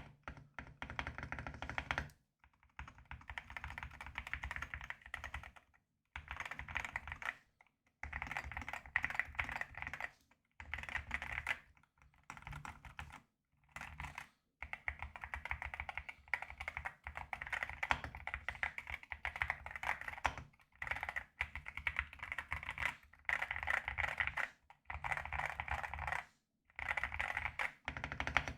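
Typing on an AKKO MU01 mechanical keyboard with a solid wooden case: runs of rapid keystrokes in about a dozen spells, broken by short silent gaps.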